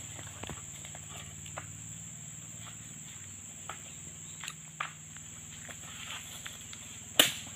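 Steady high insect drone in an oil palm plantation, with scattered soft clicks and rustles of someone moving among dry palm fronds, and one sharp knock about seven seconds in, the loudest sound here, from the harvesting tool.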